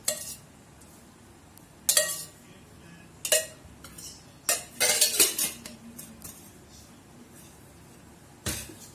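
Steel spoon and small steel bowl clinking against each other and the rim of a metal kadai as mustard oil is spooned into the pan: a handful of sharp metal clinks, with several close together about five seconds in.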